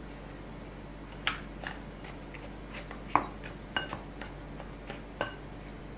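A pink bowl scraper stirring dry flour and sugar in a glass mixing bowl, knocking against the glass in a string of about eight sharp clicks, several with a brief glassy ring.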